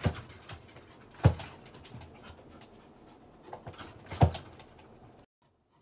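A Maltese dog moving about on a plastic grid toilet tray in its pen: three sharp knocks, at the start, about a second in and about four seconds in, with lighter clicks of paws and claws between them. The sound drops away abruptly shortly before the end.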